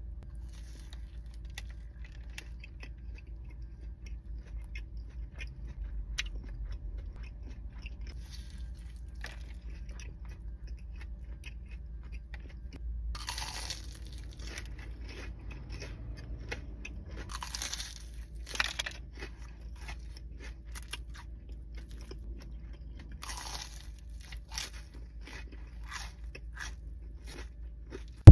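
Close-up crunching and chewing of a Korean corn dog's fried batter coating: continual small crackles, with a few louder crunching bites.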